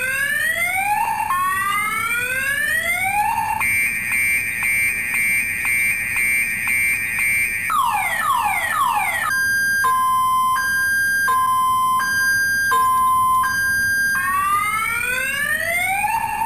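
Electronic multi-tone car alarm cycling through its sounds. It starts with repeated rising whoops, then about four seconds of a fast steady warble, then falling sweeps. From about nine seconds in it switches to a two-tone hi-lo beep, and near the end goes back to rising whoops.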